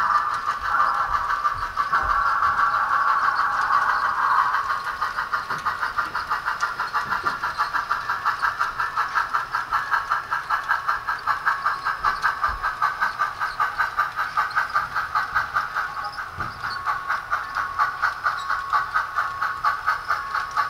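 Soundtraxx Tsunami DCC sound decoder in an HO-scale brass N&W K1 steam locomotive, playing through the model's small onboard speaker. It gives a held, chord-like steam whistle for the first four seconds or so, then steady exhaust chuffing at about three beats a second as the engine runs along.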